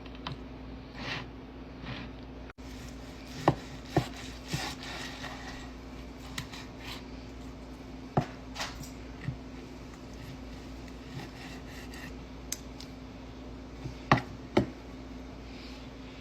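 Knife and fork cutting steak, rasping and scraping on the plate or board, with several sharp clicks and knocks of cutlery, two of the loudest close together near the end.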